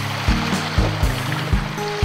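Background music with a steady beat, about two beats a second, over held bass notes.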